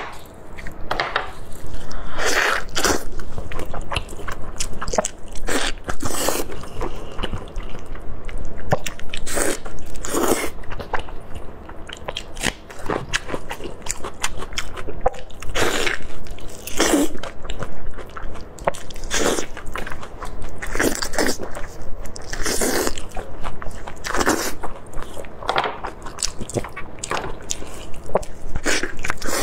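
Close-miked biting and chewing of sauce-glazed pork, many irregular bites and chews.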